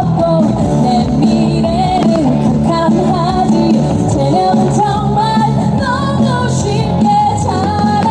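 A pop song with a singer over instrumental backing, playing loud and steady.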